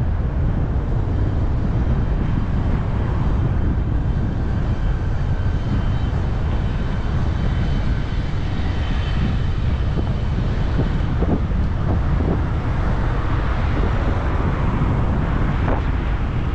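Steady wind rumble on the microphone of a camera riding on a moving bicycle.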